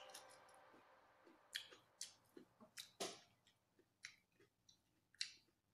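Faint, scattered wet smacks and clicks of a person chewing food. The tail of background music fades out in the first second.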